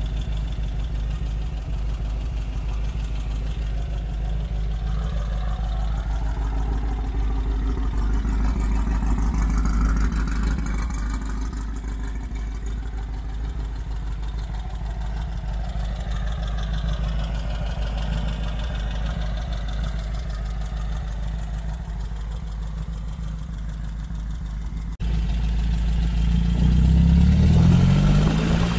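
Air-cooled 1,848 cc stroker VW flat-four with Weber carburetors and Cherry Bomb exhaust idling steadily. About 25 seconds in, it cuts to the engine running louder and revving up as the sand rail accelerates.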